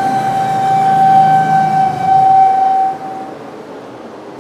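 Steady mechanical whine over a low hum from the single-turbo Nissan 370Z on the chassis dyno just after a power run, cutting off about three seconds in and leaving a quieter steady hum.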